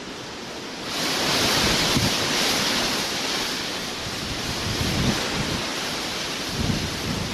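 Storm wind rushing in a loud, steady hiss that swells suddenly about a second in, with gusts buffeting the microphone in irregular low rumbles that grow stronger near the end.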